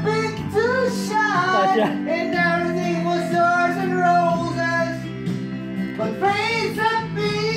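Karaoke: a voice singing through a microphone over a backing track, with long held notes.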